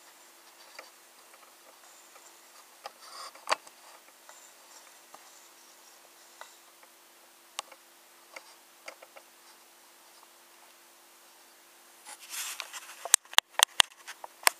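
Quiet room with a faint steady hum and scattered light clicks and knocks from handling. A rustle comes near the end, then a quick run of sharp, loud clicks.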